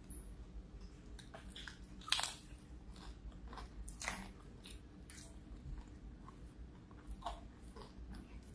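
Close-up crunching bites and chewing of a fried tortilla-wrapped egg roll: an irregular run of crisp crackles, loudest about two seconds in and again about four seconds in.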